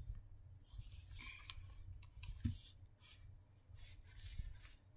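Faint handling noises: a few light clicks and soft rustles as hands move a tablet computer about.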